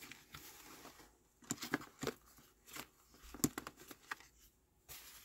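Small cardstock colour swatches being gathered up and shuffled by hand: paper rustling, then a string of short flicks and taps as the cards slide against each other from about a second and a half in.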